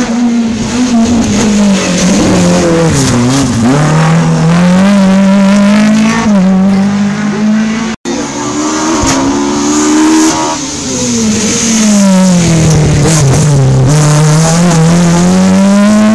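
Rally car engines at high revs: each drops sharply as the car brakes for a corner and climbs again as it accelerates away, twice, with a brief break between the two passes.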